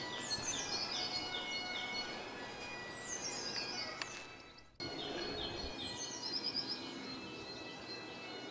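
A songbird singing: several quick phrases of high notes, each falling in pitch. The sound fades away about four seconds in and cuts back in sharply less than a second later.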